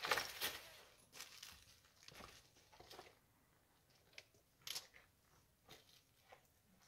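Dry branches scraping and cracking, with stones crunching underfoot, as a long dead branch is handled and stood upright in stony ground. A rustling burst at the start, then scattered sharp snaps and clicks, the sharpest just under five seconds in.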